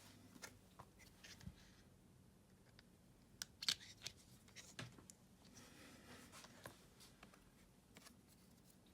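Faint, scattered clicks and taps of small tools and phone parts being handled during a phone repair. There is a sharper cluster of clicks a few seconds in and a brief scraping rustle about two-thirds of the way through.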